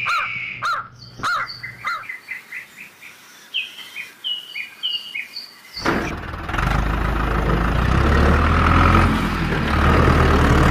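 Birds chirping, short quick calls gliding in pitch, a few each second. About six seconds in, a loud, steady engine sound like an idling tractor starts up and drowns them out: a tractor sound effect for the toy tractor.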